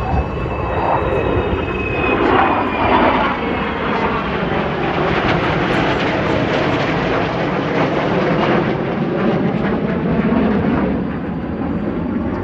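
Aircraft engine noise, loud and continuous, its pitch sagging and rising as the aircraft moves.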